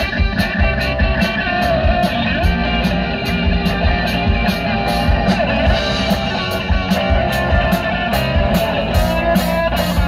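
Live rock band playing: electric guitars, bass guitar and a drum kit, with a steady beat of about three strokes a second.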